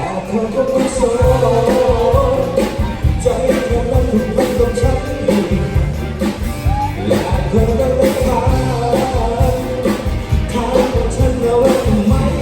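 A song with a singer and band playing over a steady beat.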